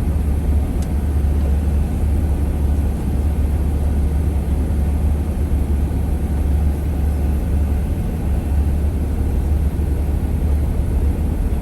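A vehicle driving, heard as a steady low rumble of engine and road noise that holds even throughout.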